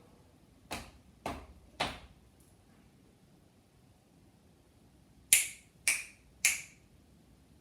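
Body percussion made by hand: three evenly spaced, duller slaps, a pause of about three seconds, then three louder, sharper cracks about half a second apart.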